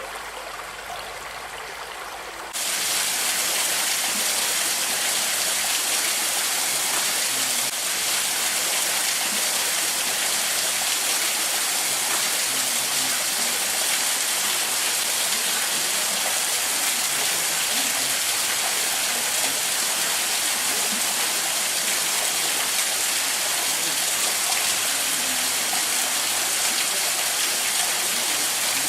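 Steady rushing of a creek and waterfall, a dense hiss of falling and running water. About two and a half seconds in it cuts to a louder, fuller rush that stays steady.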